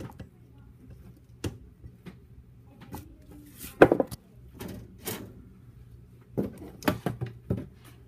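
Irregular knocks, clicks and short rustles of objects being handled, the loudest a sharp knock about four seconds in, over a low steady hum.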